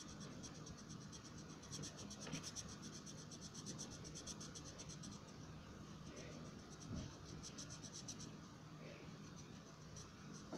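Colored pencil scratching on paper while shading, in runs of quick back-and-forth strokes.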